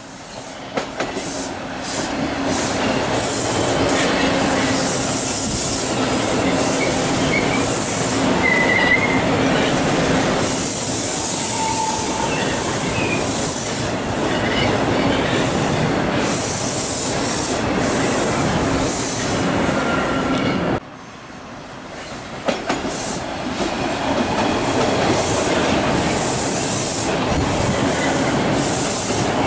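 Subway train running past on open track: a steady rumble with clickety-clack from the wheels, and high-pitched wheel squeal coming and going in repeated bursts. The sound drops off suddenly about two-thirds of the way through, then builds back up.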